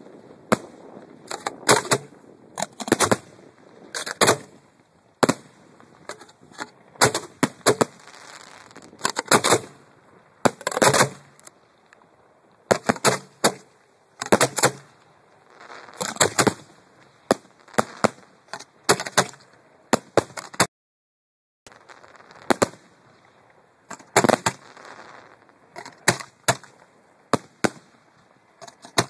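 Professional display fireworks fired at close range: a rapid, irregular series of sharp bangs from shells launching and bursting, several trailing off in a longer rush of crackling noise. The sound cuts out completely for about a second roughly two-thirds of the way through.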